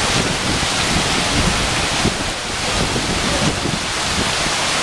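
Hurricane-force wind and heavy rain, a steady rushing hiss with irregular low gusts buffeting the microphone.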